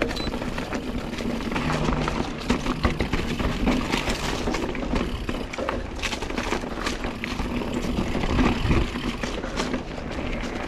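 Mountain bike riding over rough dirt trail: a steady rush of tyre and air noise, crowded with frequent rattles and knocks from the bike over bumps.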